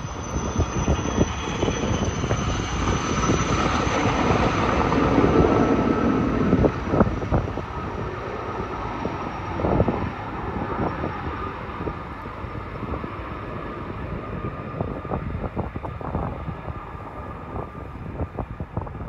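Helicopter flying low overhead with a steady chopping rotor beat, loudest about five seconds in, then fading as it flies off.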